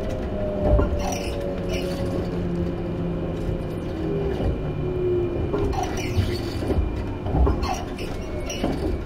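Sanyo 5030 series electric train heard from on board: the Fuji Electric IGBT VVVF inverter's whine slides steadily down in pitch as the train slows, over the steady rumble of the wheels on the rails. A few sharp rail-joint clicks come through.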